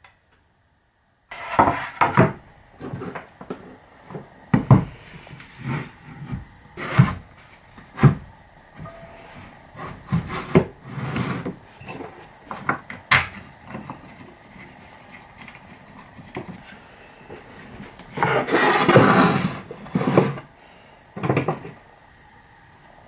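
Pine boards and blocks handled on a wooden workbench: a string of separate knocks and clatters starting about a second in, with a longer scraping rub of wood on wood near the end.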